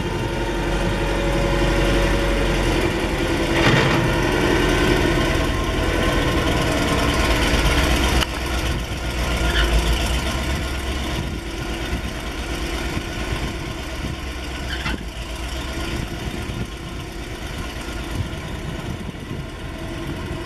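Engine of a 1981 Ford F600 truck running steadily as the truck drives slowly by. A few brief higher-pitched sounds cut in now and then, and the level drops slightly about eight seconds in.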